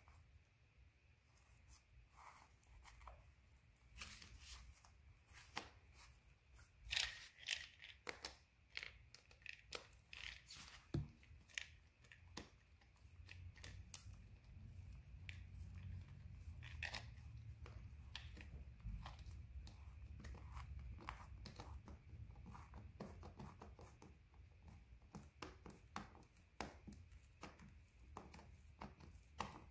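Faint rustling and crinkling of satin fabric being pulled and smoothed by hand, with scattered small clicks and scrapes as a hand screwdriver drives a tufting screw through the fabric. A faint low rumble runs through the middle stretch.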